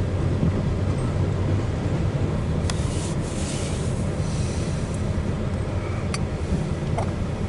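Loaded CSX coal train's cars rolling past at close range: a steady rumble of steel wheels on rail, heard through the car's windshield, with a couple of brief sharp high clicks about a third of the way in and again past the middle.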